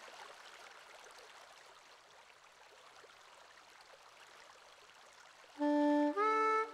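A small mountain stream running, a quiet, steady rush of water. About five and a half seconds in, music with held notes starts and is much louder.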